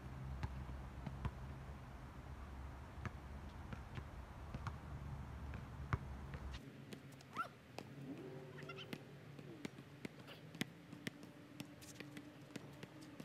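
A basketball bounces on an outdoor court as sharp, regular thuds, over a low rumble that cuts off abruptly about halfway through. In the second half a cat meows a few times with bending, wavering pitch.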